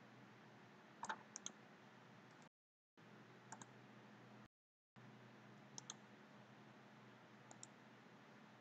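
Computer mouse button clicks, mostly in quick pairs, about four times, over a low steady hiss and hum. The hiss drops out to dead silence twice for a moment.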